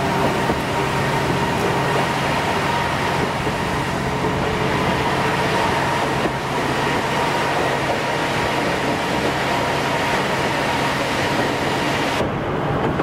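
A Kominato Railway diesel railcar running along the line, heard from inside: a steady engine drone under wheel-on-rail rumble and hiss. The higher hiss drops away suddenly near the end.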